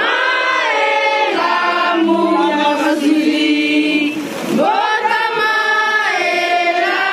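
A group of voices singing together, with a short break a little past halfway.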